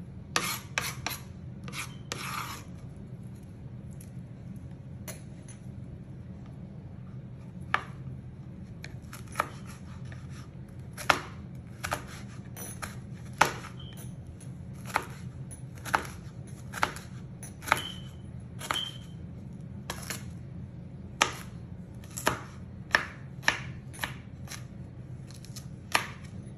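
Kitchen knife chopping green chili peppers on a plastic cutting board: a quick run of cuts at the start, then single sharp knife taps about once a second, over a steady low hum.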